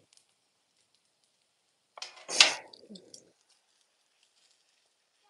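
A metal spatula scraping and clacking on a flat-top propane griddle once, about two seconds in, over faint sizzling of bacon and hash browns.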